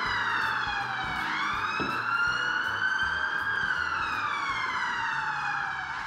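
Emergency-vehicle siren wailing, its pitch sweeping slowly up and down: it bottoms out about a second in, climbs for about two seconds, then falls again near the end.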